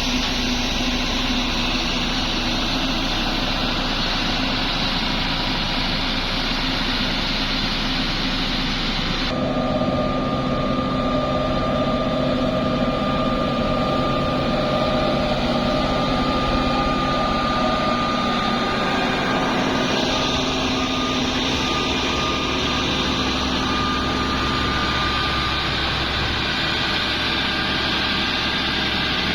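Engines of heavy road-construction machinery running steadily. The sound changes abruptly about nine seconds in, and after that a steady whine runs over the engine noise.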